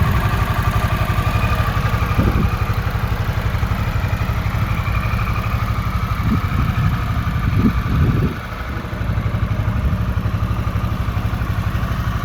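Harley-Davidson Sportster S's Revolution Max 1250T V-twin engine idling with a steady low pulse, with a few short throttle blips about 2, 6 and 8 seconds in.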